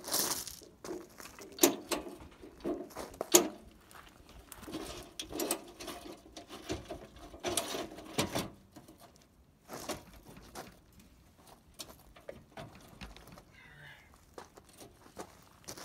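Moryde folding metal trailer steps being handled and set into a trailer doorway: scattered knocks, clanks and scuffs, with two sharp knocks in the first few seconds.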